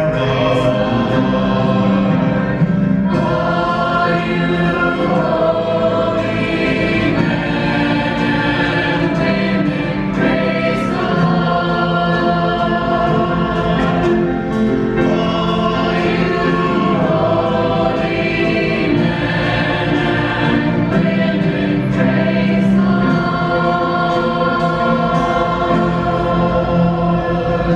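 Choir singing slow, long-held chords.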